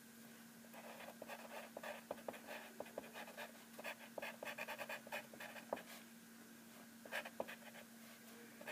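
Wooden pencil drawing on paper: faint, short scratchy strokes with small clicks as the tip sketches lines, pausing briefly about six seconds in, over a low steady hum.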